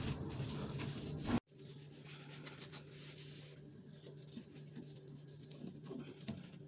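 Cleaning cloth wiping and rubbing across kitchen drawer fronts, faint. The sound cuts off abruptly about a second and a half in and resumes quieter, over a steady low hum.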